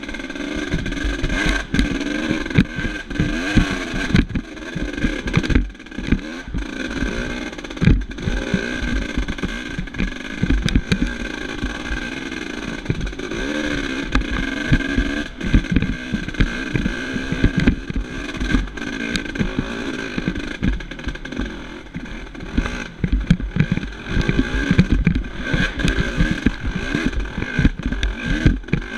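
Dirt bike engine revving up and down continually while being ridden over a rough forest single-track trail, with frequent sharp knocks and rattles from bumps.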